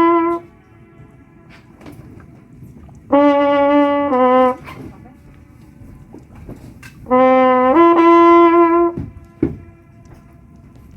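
A brass horn plays short phrases of two held notes, three times. After each phrase a faint echo of the same notes comes back off the lake's rock walls: the Königssee echo.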